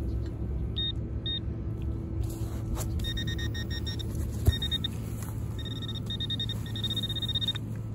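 Handheld metal-detecting pinpointer probe beeping: a couple of short beeps, then rapid pulsed beeping that starts and stops several times as the probe is passed over the dug plug of soil, signalling a metal target in it. A low steady rumble runs underneath.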